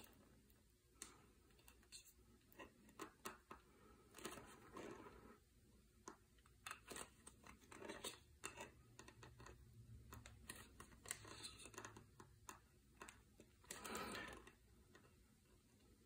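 Faint scattered clicks and short scrapes of a sharp knife blade cutting along the glued bead of a rubber RC drag tire to free it from its wheel, with one longer scrape near the end.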